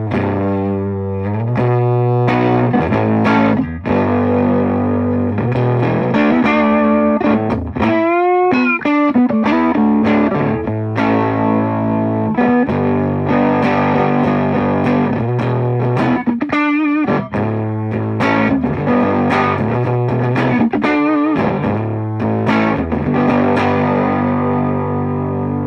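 Electric guitar played through a modded Ibanez TSA15 tube amp, cranked so its 6V6 output tube is overdriving. Distorted chords and single-note phrases with two bent notes wavering in vibrato, ending on a held chord left to ring.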